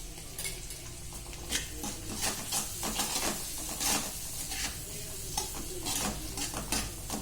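Spatula stirring and scraping against a kadai, many short scrapes and clinks, over the low sizzle of onions and spices frying in oil.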